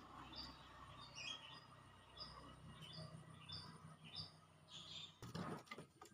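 Faint small-bird chirping: a series of short, high chirps at about two a second, with a brief rustle near the end.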